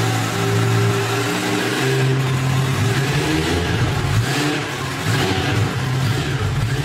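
Kawasaki Ninja ZX-10R's inline-four engine idling, then revved in short throttle blips, its pitch rising and falling a few times from about two seconds in.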